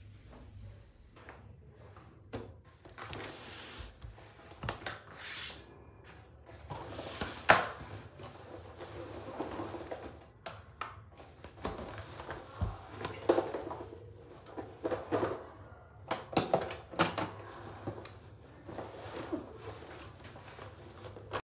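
Papers, a laptop and a tablet being handled and set down on a desk: irregular rustling with light knocks and clicks, one sharper knock about a third of the way in.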